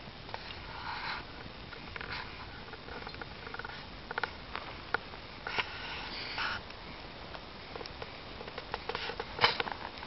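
Log bonfire crackling, with irregular sharp pops and snaps and short hissing crackles over a low background hiss. The loudest snap comes about nine and a half seconds in.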